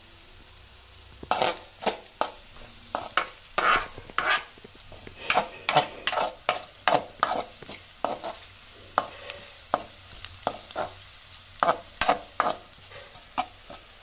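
Slotted metal spoon scraping and clinking against a metal kadai, stirring onions, green chillies and spices frying in oil, in quick irregular strokes over a faint sizzle. The strokes start about a second in and keep going until near the end.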